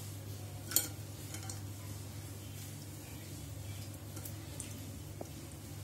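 Cut potato sticks being rubbed by hand in water in a steel bowl: faint sloshing with a few light clicks against the bowl, the sharpest about a second in, over a steady low hum.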